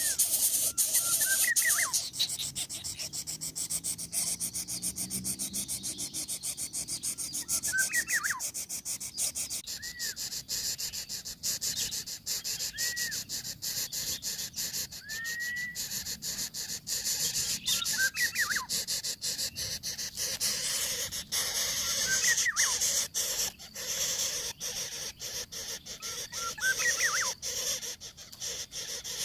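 Short, thin whistled bird calls, each a quick rising-then-falling note, repeated every two to four seconds over a steady high hiss and rapid ticking.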